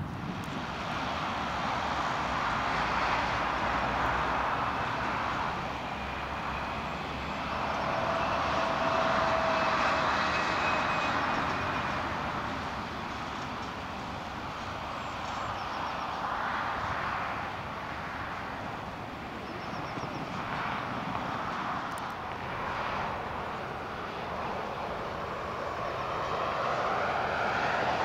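Distant engine drone over a steady outdoor hiss, swelling and fading twice in the first half.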